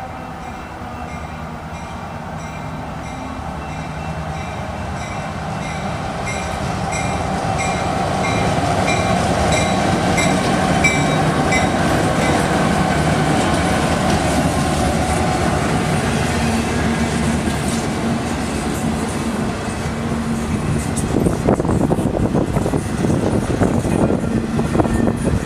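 Freight train's diesel locomotives passing slowly, their engine sound growing louder as they come alongside, while a grade-crossing bell rings steadily for several seconds. Near the end, empty flatcars roll by with their wheels clattering over the rail joints.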